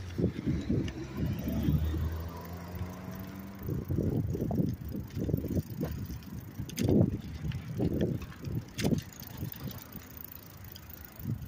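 A bicycle being ridden: uneven low bumping and knocking, with a few sharp clicks near the middle.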